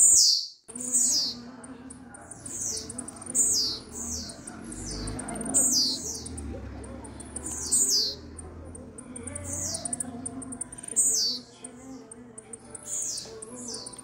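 Blue-black grassquit (tiziu) in brown plumage singing: a thin, high note that sweeps down in pitch, given over and over about once a second, often doubled.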